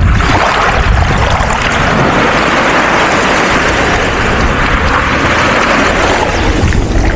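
Sea water washing and surging in the shallows, a steady hiss, with wind buffeting the microphone as a low rumble.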